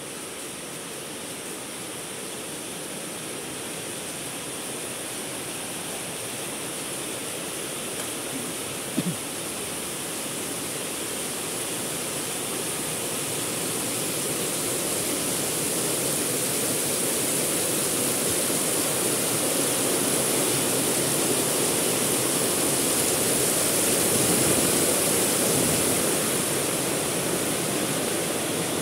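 Heavy rain falling steadily, building gradually heavier through the first half and then easing a little near the end. One brief knock about nine seconds in.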